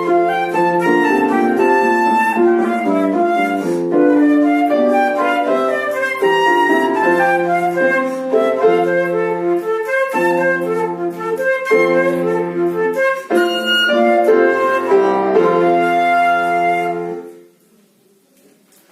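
A flute-type wind instrument playing a lively melody over piano accompaniment, the music stopping abruptly near the end, leaving faint room noise.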